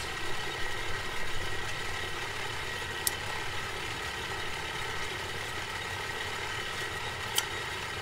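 Air blower feeding a bloomery furnace, running with a steady hum and whine. Two sharp clicks about three and seven seconds in, as a hatchet is used to pry the cap off a beer bottle.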